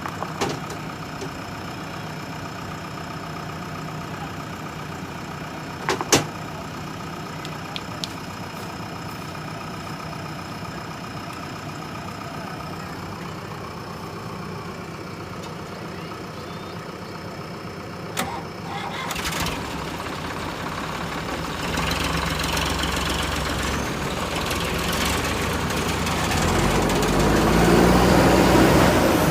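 JCB backhoe loader's diesel engine running steadily near idle, broken by a few sharp knocks, the loudest about six seconds in. From about twenty seconds in the engine grows steadily louder and heavier as it is worked harder.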